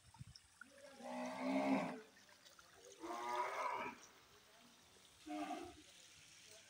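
Indian native cattle mooing: three calls, the first two about a second long each, the third shorter, about five seconds in.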